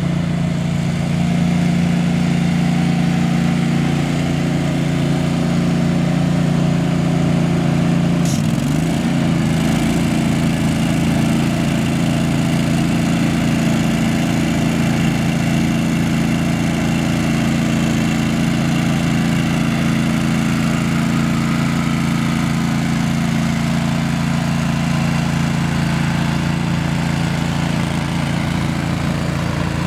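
Toro ProCore 648 walk-behind aerator running steadily while it punches needle tines into a golf green, with a fast low pulsing under the engine note. The note shifts briefly about eight seconds in.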